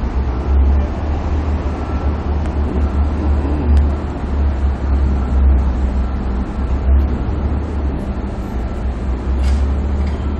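City street traffic: a steady low engine rumble from idling and passing vehicles.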